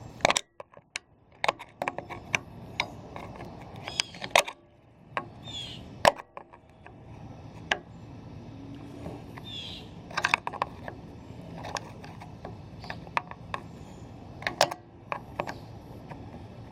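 Irregular sharp metal clicks and clinks over a steady low background noise, from a hand reel mower's parts being handled and fitted together. Two short high squeaks come about a third and about halfway through.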